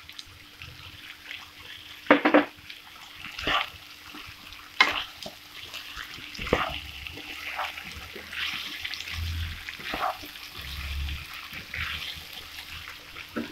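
Spatula stirring potatoes and cut long beans frying in a nonstick wok, with irregular scrapes and knocks against the pan over a low sizzle.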